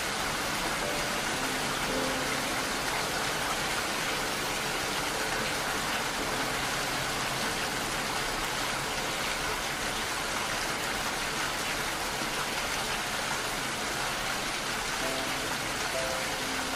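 Steady, dense rain. A few faint, soft musical notes sound near the start and again near the end.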